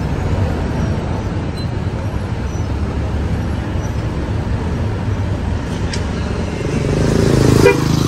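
A coach bus's diesel engine rumbling as the bus pulls slowly out of its bay, growing louder near the end as it comes close, with a short horn toot just before the end.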